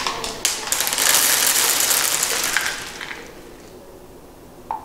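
Dry dog kibble raining down and scattering across a hardwood floor: a dense clatter of many small pellets landing and bouncing, heaviest for the first three seconds and then thinning out, with a single tap near the end.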